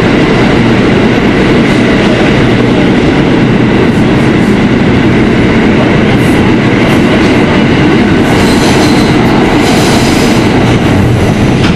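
Kawasaki R160B subway car running at speed through a tunnel, heard from inside the car: a loud, steady rumble of wheels on the rails, which the new tunnel track makes very loud.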